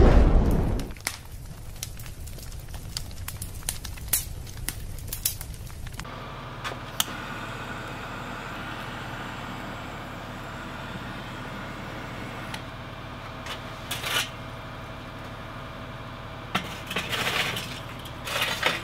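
A loud whoosh, then fire crackling for several seconds. After that a steady hiss while charcoal in a Weber kettle grill is lit with a handheld lighter, with sharp clinks of charcoal lumps near the end as they drop into a chimney starter.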